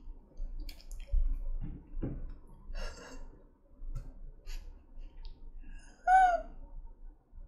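A woman laughing quietly under her breath: breathy exhales and small laughs, with a short high-pitched giggle about six seconds in.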